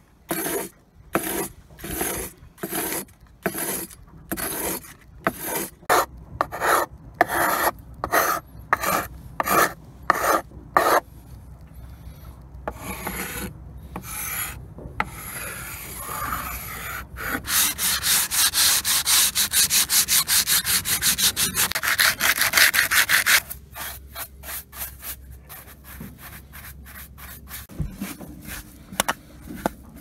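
Hand scraper scraping old varnish off wooden trim in repeated strokes, about two a second at first. Midway comes a run of several seconds of much quicker, shorter strokes, then a few slower ones. The blade is dull and needs a sharpen.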